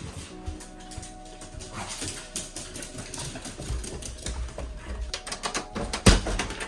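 Background music over a quick patter of clicks and taps: two mini Australian Shepherds' nails and feet going down wooden stairs, with footsteps following. About six seconds in comes one loud knock of the front door's handle and latch being worked.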